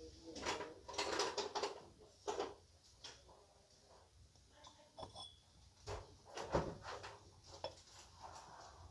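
A figurine and a ceramic trinket box handled on a shelf with a textured liner: a series of light knocks, taps and scrapes as they are set down and touched, the loudest knock about six and a half seconds in, over faint store background noise.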